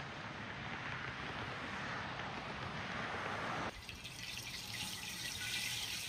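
Steady rushing road and wind noise of a moving car, heard through a dashcam. It cuts off abruptly about three and a half seconds in, giving way to a quieter, thin outdoor hiss.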